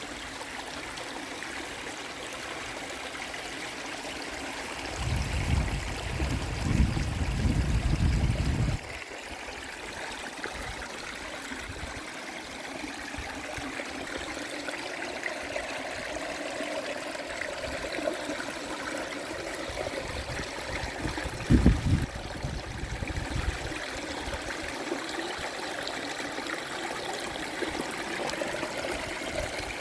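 River water flowing steadily over a shallow bed. A loud low rumble comes in from about five to nine seconds in, and a brief low thump about twenty-one seconds in.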